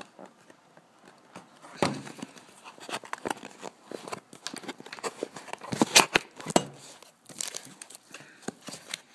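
Cardboard product box being opened by hand: irregular rustling, crinkling and scraping of the flaps and packaging, with sharp clicks and knocks, the loudest about six seconds in.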